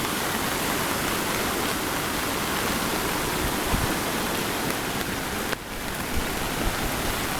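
Steady rushing of floodwater, with a brief dip just after five seconds in.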